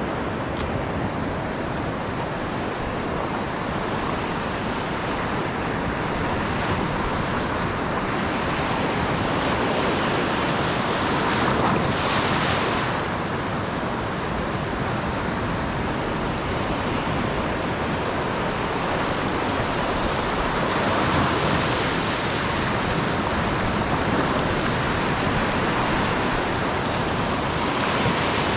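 Ocean surf breaking and washing over a shallow sandy beach: a steady rush that swells about twelve seconds in and again a little past twenty seconds as waves break.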